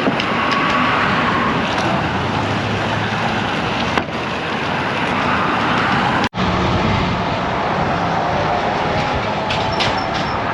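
Strong wind rushing over the helmet or bike camera's microphone mixed with the steady noise of road traffic, heard from a moving bicycle. The sound cuts out for an instant about six seconds in.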